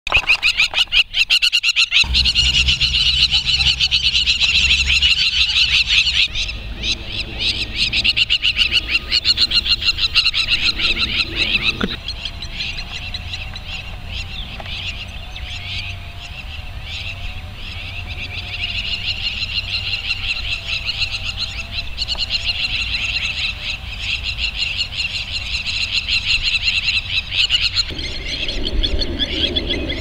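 Crowned lapwings (crowned plovers) calling in rapid, repeated alarm notes with hardly a break: agitated birds defending their ground against a dog.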